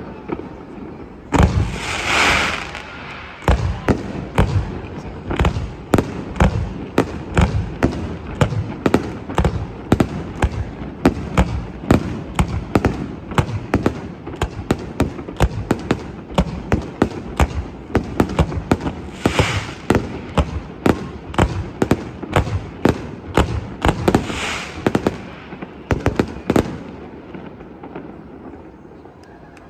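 Fireworks shells bursting in a rapid barrage, several bangs a second, with hissing bursts about two seconds in, then around nineteen and twenty-four seconds. The barrage dies away near the end.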